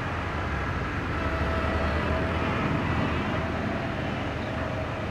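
Caterpillar single-drum road roller's diesel engine running steadily as the roller drives over the graded laterite road base.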